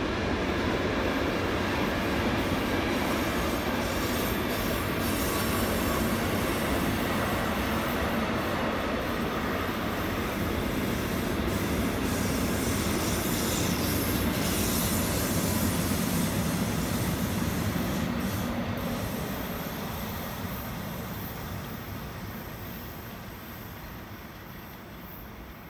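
Long intermodal freight train of container and swap-body wagons rolling past on a curve: steady wheel-on-rail noise that fades away from about three-quarters of the way in, as the tail of the train passes and recedes.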